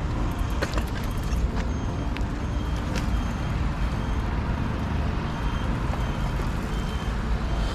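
Steady low rumbling wind noise on an action camera's microphone as the mountain bike is ridden, with a few faint clicks.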